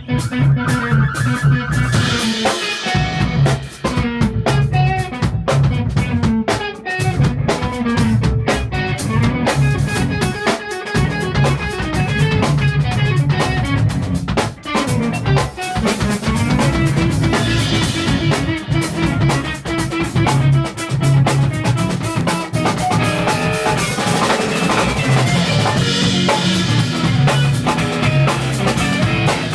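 Rock band playing live: a drum kit with sharp snare hits under distorted-free electric guitar lines, the full band going without a break.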